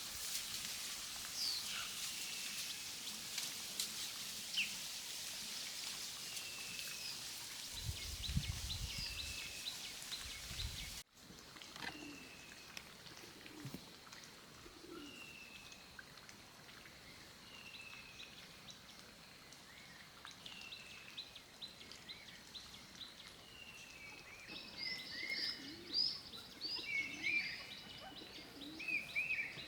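Birds calling and singing: a short falling whistle repeated every second or two, with busier overlapping chirps near the end. The background hiss drops abruptly about eleven seconds in.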